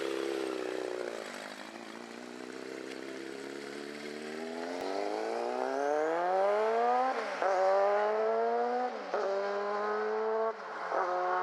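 Honda CB1000SF's inline-four engine running through a loud, very free-flowing aftermarket silencer. It holds steady at first, then revs climb under acceleration, the pitch dropping sharply three times as the gears are shifted up.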